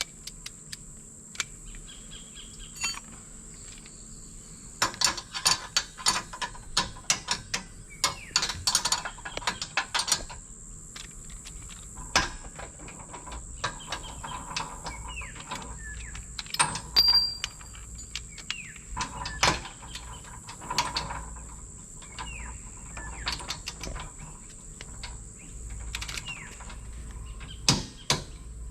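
Ratchet of a torque wrench clicking in short bursts of rapid clicks as the hitch mounting bolts are tightened to torque, with pauses between the bursts.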